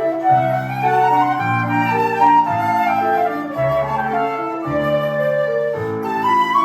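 Two flutes playing a duet of held, gently moving melody lines over a low sustained accompaniment, with notes changing about every half second to a second.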